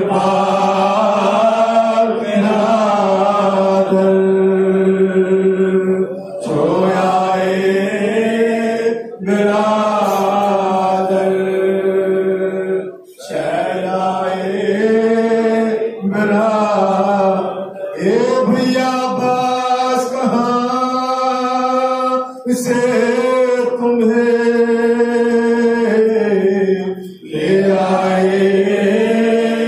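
Men chanting a Muharram lament (nauha) into a microphone, in long drawn-out phrases with short breaks between them.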